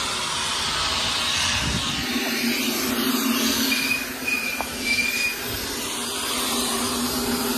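Wind rumbling on the microphone, with a steady low mechanical hum coming in about two seconds in.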